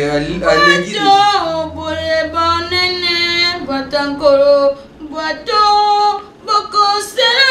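A woman's high voice in long, drawn-out sung notes, several phrases with short breaks between them.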